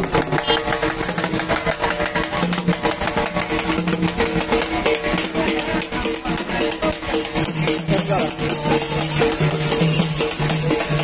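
Music with a fast, busy beat over sustained tones.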